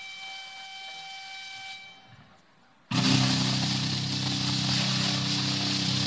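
A steady high whistling tone from the stage sound system for the first couple of seconds, then a short hush. About three seconds in, a loud, heavily distorted electric guitar chord is struck and held ringing.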